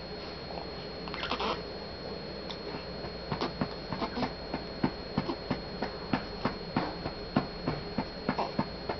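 A hand patting a back to bring up a burp: soft, even taps about three a second, starting about three seconds in. A short rustle comes about a second in.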